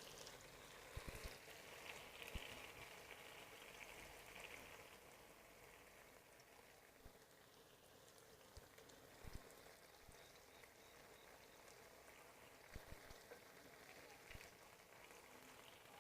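Faint, steady sizzling of chicken frying in olive oil in a pan, with scattered small pops and ticks.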